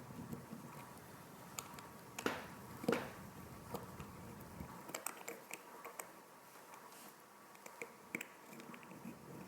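Metal case-opener tool clicking and scraping on a wristwatch's case back as it is twisted open, with two sharper clicks a couple of seconds in and lighter ticks later.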